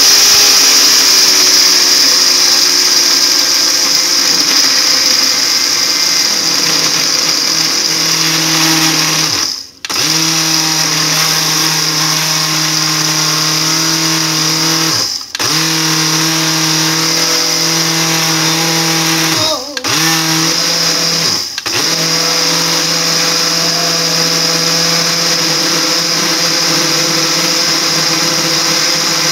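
Cuisinart SmartPower Duet countertop blender motor running loud and steady, blending frozen strawberries and ice into a shake. It cuts out briefly four times, about 10, 15, 20 and 22 seconds in, and starts straight up again.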